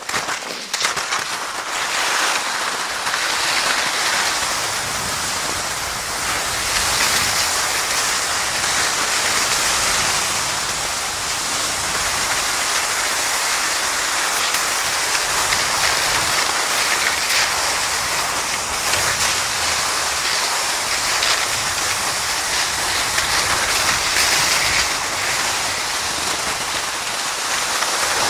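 Skis gliding fast over crusted spring snow behind a pulling dog, a steady scraping hiss.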